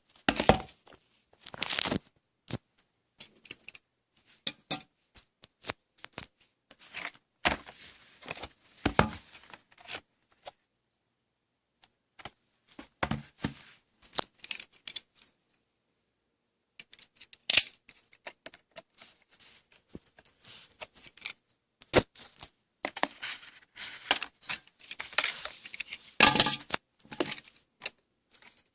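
Retail packaging of a Corsair Dominator GT memory kit being opened and handled: irregular rustling, crinkling and sharp clicks of cardboard and plastic, broken by silent gaps, with a louder flurry near the end.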